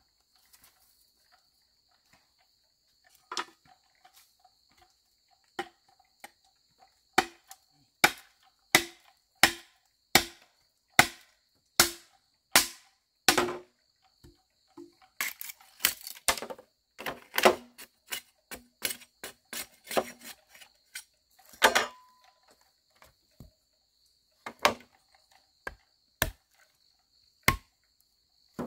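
Repeated sharp knocks, one about every three-quarters of a second for several seconds, then quicker irregular knocks, then a few spaced strikes near the end. A faint steady high insect trill runs underneath.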